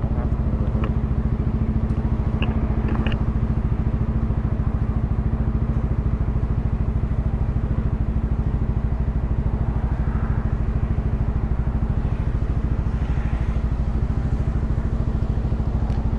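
Yamaha XMAX 300 scooter's single-cylinder engine idling steadily, its pitch unchanging.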